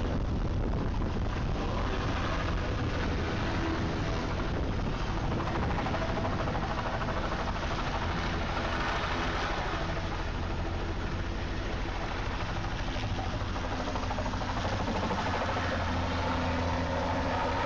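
Light helicopter's rotor and turbine engine running steadily while it hovers and lurches low over the ground, a constant low drone under a rushing noise.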